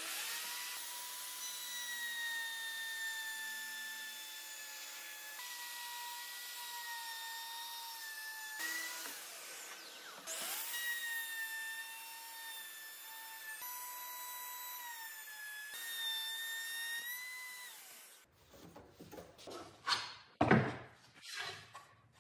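Festool plunge router running at full speed with a steady high whine over a rushing hiss as it cuts a groove along the edge of a wooden board. About halfway through, the motor winds down and spins back up with a rising whine. It stops near the end, followed by a run of wooden knocks and bumps as the board is handled.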